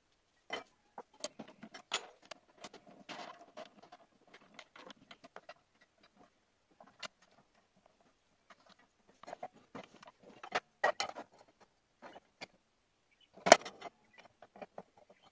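Handling noise of a thin metal plate being shifted and repositioned on a bench drill press's metal table while a clamp is fitted: scattered small clicks, taps and rattles, with one sharper knock near the end.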